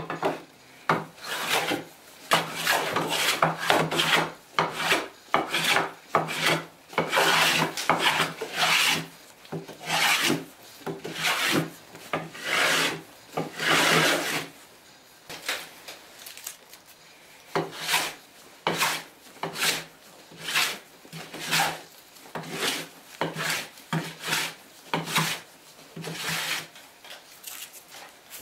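Metal bench plane taking shavings off a wooden board in repeated strokes. The strokes are long and close together for about the first half, then become shorter and more spaced, about one a second.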